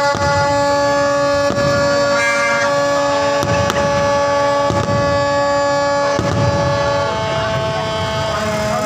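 Several horns blowing long, steady notes of different pitches at once, overlapping and held for seconds. Sharp bangs come through a few times.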